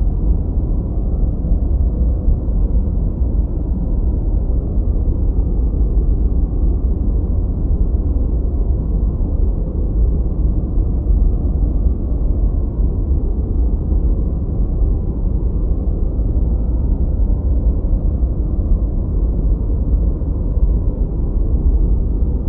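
A steady low rumbling drone with no separate events.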